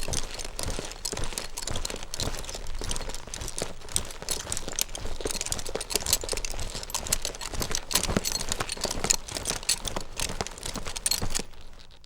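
Horse hooves on loose ground: a dense, irregular run of crunching clicks that fades out near the end.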